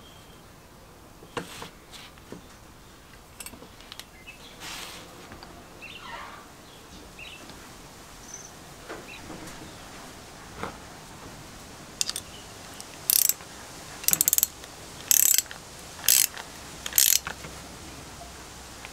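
Restored 1950s Aerite single-cylinder foot tyre pump being worked by hand. Light metal clicks and taps come first; then, from about twelve seconds in, there are about six short hisses of air from its nozzle, roughly one a second, as the pedal is pushed down.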